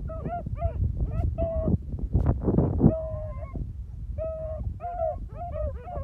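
Beagle hounds baying in short, repeated calls, several voices overlapping at times, as the pack gives tongue while working a scent through the brush.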